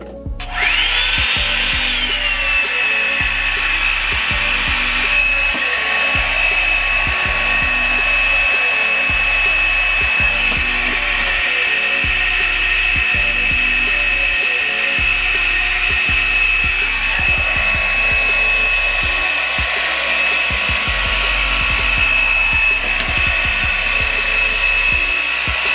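Revlon brush blow dryer switched on about half a second in: its motor whine climbs quickly, dips slightly and then runs steady and high-pitched as it blows over the hair. A background music beat plays underneath.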